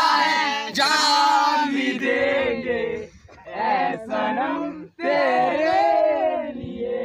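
Several male voices singing loudly together, in phrases broken by short pauses about three and five seconds in.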